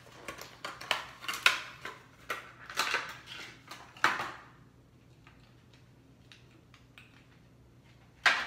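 Stiff plastic lure packaging crinkling and crackling in quick bursts as the package is pulled open and the soft plastic frog is taken out, then a pause and one sharp crackle near the end.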